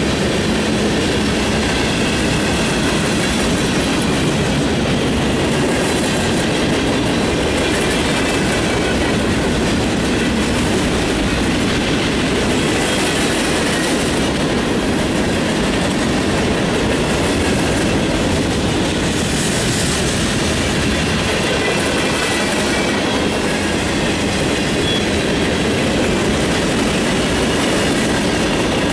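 Freight train passing close, its tank cars and covered hoppers rolling by with a steady, loud rumble of steel wheels on rail and a recurring clatter as the wheels cross rail joints.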